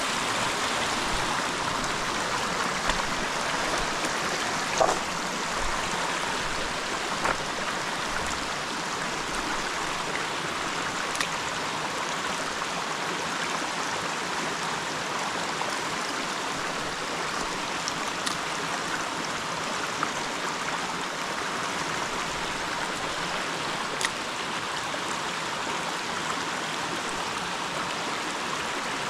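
Creek water rushing over rocks, a steady even rush, with a few faint clicks and knocks now and then, the plainest about five seconds in.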